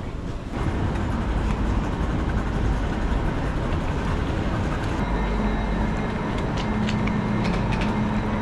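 Train running: a steady rumble and rush of noise, with a steady low hum coming in about five seconds in and a few light clicks near the end.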